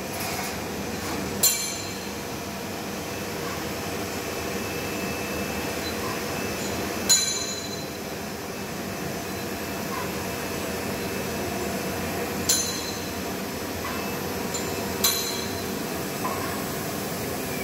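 Blown-film extrusion line for LDPE shrink film running with a steady mechanical hum. Four sharp clicks stand out at irregular intervals.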